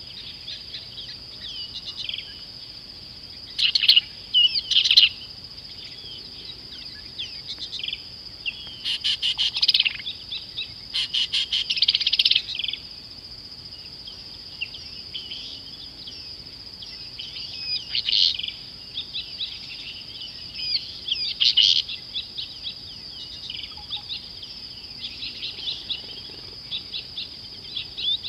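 Several wild birds chirping and calling over a steady high-pitched drone, with louder flurries of rapid chirps about four, nine and twelve seconds in.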